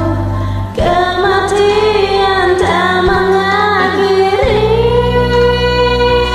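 A woman singing slow, held melody lines over a karaoke backing track, with a short break just under a second in before the next phrase. By the singer's own account her voice is off-key and strained from a cough and cold.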